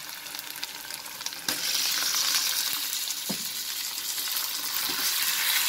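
Raw chicken cubes tipped into hot oil with fried onions. The sizzle jumps sharply louder about a second and a half in and then hisses steadily, with a couple of faint knocks near the end.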